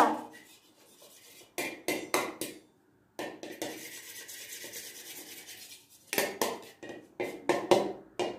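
Wooden spoon stirring in a metal frying pan: a few knocks against the pan, a steady scraping stir lasting about three seconds in the middle, then another run of quick knocks near the end.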